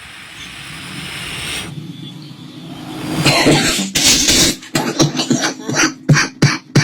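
A rising hiss, then a sampled cough that is chopped into short repeated hits, about three to four a second, building up like the intro to an electronic bass drop.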